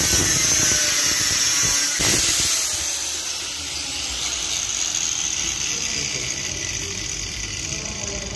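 Angle grinder with a cutting disc slicing through a steel threaded rod, loud for about two and a half seconds, then dropping to a quieter steady background noise for the rest.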